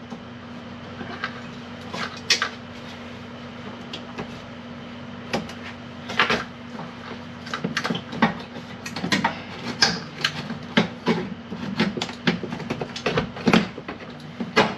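Scattered clicks, taps and light rattles of hands working on plastic parts and a wiring harness behind a removed car dashboard, sparse at first and busier from about five seconds in.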